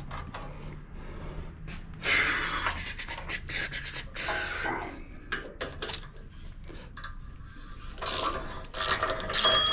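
Hand ratchet working the muffler bolts loose: runs of rapid ratchet clicking and metal scraping about two seconds in, and again near the end.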